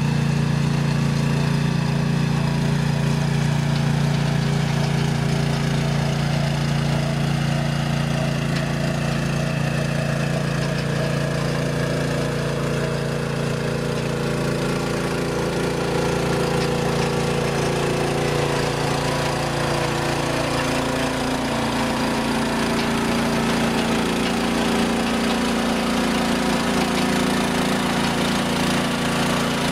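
Small engine of a Jansen RD-500 tracked mini dumper running steadily as the machine drives on its tracks with the front blade down. The engine note shifts in pitch about two-thirds of the way through.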